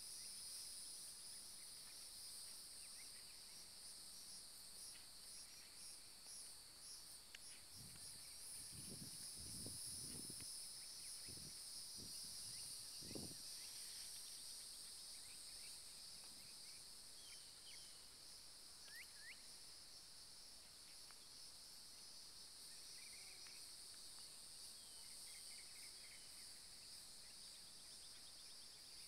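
Faint steady chorus of insects chirring in a grassy field, with a few short bird chirps in the second half. A handful of soft low thumps come about a third of the way in.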